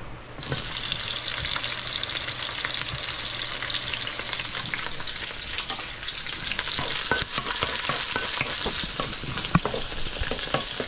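Onion dropped into hot oil in a frying pan starts to sizzle suddenly about half a second in and keeps sizzling steadily. In the second half it is stir-fried, the utensil clacking and scraping against the pan in quick knocks.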